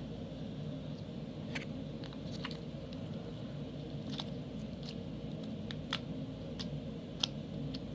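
Crunchy slime with beads mixed in, squeezed and worked by hand, giving about ten scattered small clicks and crackles over a steady low background hum.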